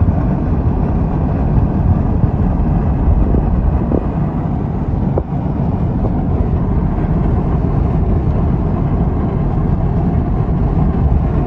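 A 2018 Ford Expedition driving at highway speed, about 120 km/h, heard from inside the cabin: steady road and wind noise with a low rumble.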